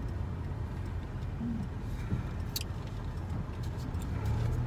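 Steady low rumble of a car driving, heard from inside the cabin, with a faint click about two and a half seconds in.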